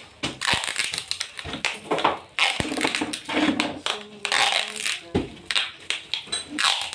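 Crinkling, rustling and scraping of a foil-wrapped air-conditioner pipe bundle and hose being handled and worked through a hole in a masonry wall. A few sharp knocks or clicks are mixed in.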